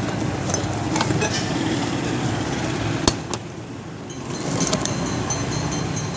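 Small metallic clicks of tools working a bolt loose on a ceiling fan, with one sharp click about three seconds in, over a steady low rumble like passing traffic.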